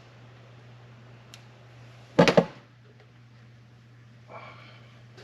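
A brief clatter of a few quick knocks of hard objects about two seconds in, over a steady low hum.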